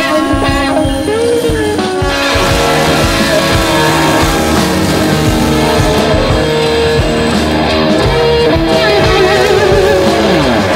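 Rock-style background music led by guitar, with one note sliding down in pitch near the end.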